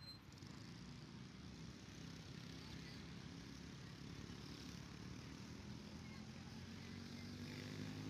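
Faint low hum of a motor vehicle's engine running, slowly growing louder.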